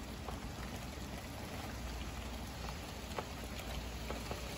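Rain falling at the start of a thunderstorm: a steady hiss with scattered drops ticking on nearby surfaces, over a low steady rumble.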